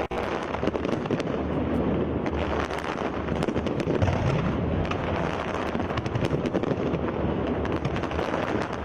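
Fireworks display: a dense, continuous rumble of bursting shells with many sharp cracks and crackles scattered through it.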